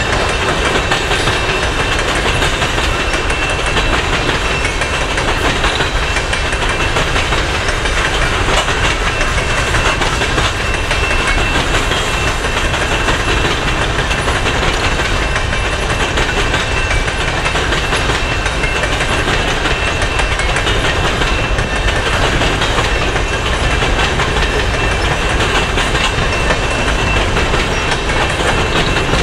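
Loaded coal hopper cars of a long freight train rolling steadily past close by: a continuous clatter of wheels over the rails with rumbling from the cars. A thin, steady high-pitched whine sits over it.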